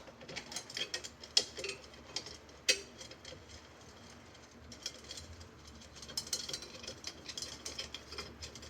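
Irregular metallic clicks and light clinks from a bicycle wheel's loose spokes and nipples as they are worked free. The spokes have lost nearly all their tension, so they rattle against each other and the rim. Two sharper clicks come early on, and a denser run of ticks follows later.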